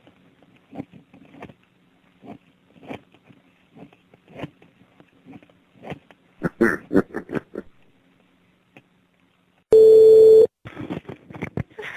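Faint, muffled voices and a low steady hum on a telephone line, then about ten seconds in a loud, steady telephone tone lasting under a second.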